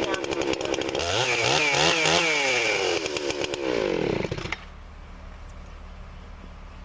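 Husqvarna 288 two-stroke chainsaw idling after a cold-weather start, then revved up and down several times and shut off about four and a half seconds in. A faint low hum remains after the engine stops.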